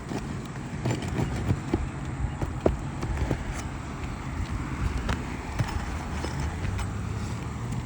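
Irregular clicks and scraping of a metal roofing tool prying against asphalt shingles to work a nail loose, over a low steady hum.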